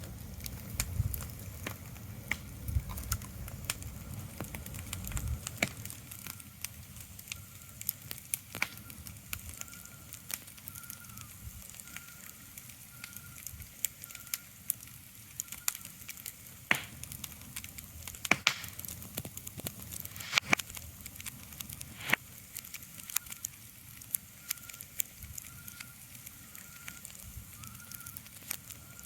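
Steady crackling, with sharp irregular pops over a soft hiss. A faint high tone repeats at short intervals through the second half, and there is a low rumble in the first few seconds.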